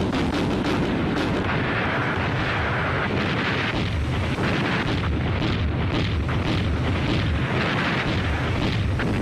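Battle sound effects of cannon fire and explosions: shot after shot and blast after blast in quick irregular succession over a continuous low rumble.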